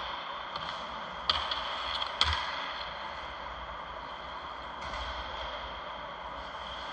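Indoor ice rink ambience during a hockey game: a steady hiss of arena air handling and distant skating, broken by two sharp clacks about a second apart.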